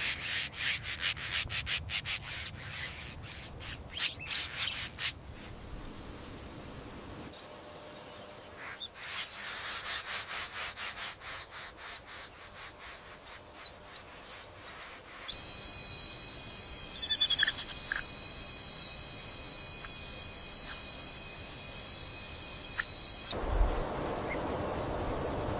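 Rapid high chirping in two bouts, then a steady high-pitched insect-like drone for several seconds, giving way to a low rumbling noise near the end.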